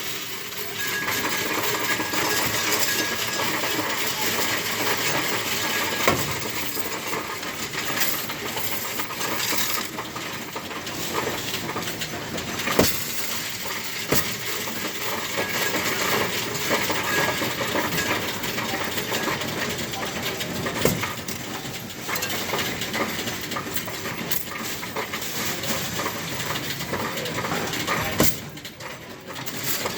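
Coin-counting machine running, with a continuous rattle and clatter of coins being sorted and counted and a few sharper clinks standing out.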